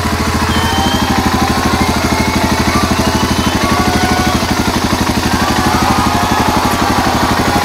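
BMW 650 GS motorcycle engine idling at a standstill, a steady, even pulsing beat.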